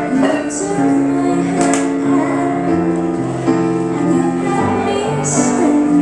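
A woman singing into a microphone with electronic keyboard accompaniment: a slow melody of long held notes over sustained chords.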